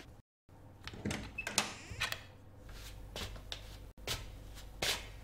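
A series of sharp clicks and knocks in a small room, clustered about a second in and then spaced out singly, with a brief dead cut to silence near the start.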